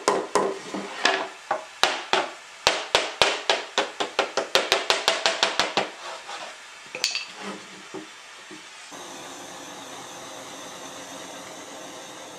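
Steel hammer striking a board of recycled synthetic (plastic) decking in a quick run of sharp blows, about four to five a second, forging the deck's edge and face. The blows thin out to a few light taps, then a handheld gas torch lights with a steady hiss about nine seconds in, heating the plastic to soften it for shaping.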